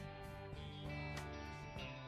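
Background music led by guitar, with occasional percussive accents.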